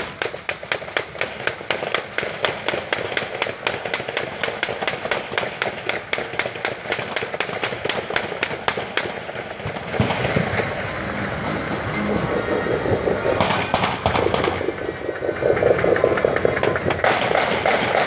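New Year's fireworks and firecrackers going off. For the first nine seconds there is a long run of rapid, evenly spaced pops, about five a second. After that comes denser crackling, with louder bursts of pops near the end.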